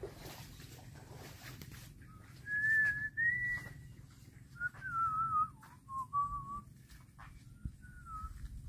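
A person whistling a short wavering tune: a few higher notes that rise to a peak, then a run of lower, falling notes, and one last short note near the end. It starts about two and a half seconds in.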